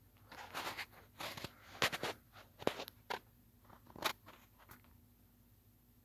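Irregular crackling and rustling noises for about four and a half seconds, loudest in a few sharp crunches, then they stop, over a faint steady hum from a Hunter Palatine ceiling fan running on low speed.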